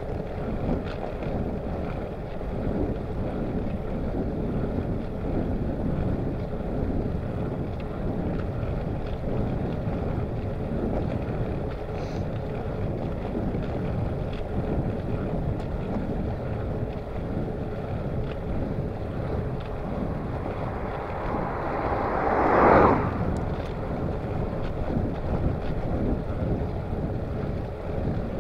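Wind rushing over the microphone of a handlebar camera on a moving bicycle, a steady rumbling noise. About three-quarters of the way through, a louder whoosh swells and fades over a couple of seconds.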